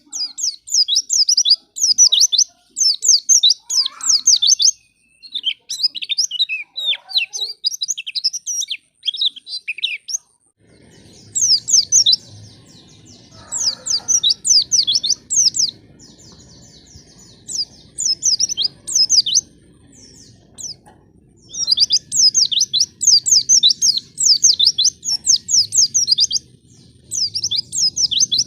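Pleci (white-eye) song: quick, high chirping trills in dense phrases broken by short pauses, with a thinner stretch near the middle. A low steady hum runs under the later part.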